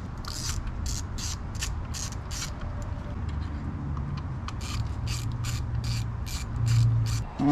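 Hand ratchet wrench clicking in short back-and-forth strokes, about three a second, with a pause in the middle, as a bolt on a motorcycle crash bar is run in. A steady low hum runs underneath.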